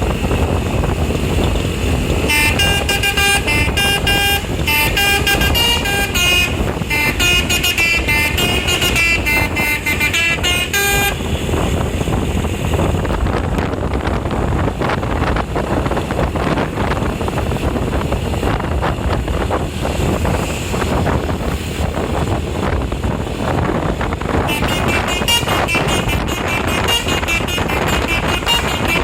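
Telolet basuri multi-trumpet horn on an Eka Persada bus playing a quick tune of changing notes for about nine seconds, then steady engine and road rumble, with the horn tune starting again, fainter, near the end.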